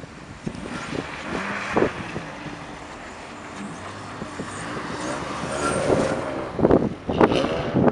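Car engines running and revving as cars drift sideways through snow, the revs climbing about two thirds of the way in. Near the end wind gusts buffet the microphone.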